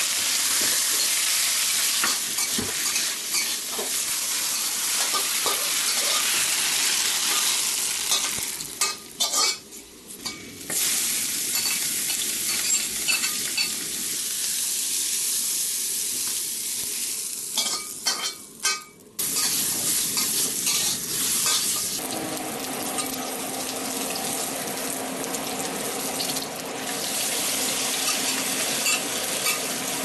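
Food sizzling in a hot wok while it is stir-fried, with a metal spatula scraping and clattering against the pan. The sizzle drops away briefly twice, and a steady hum runs under it for the last third.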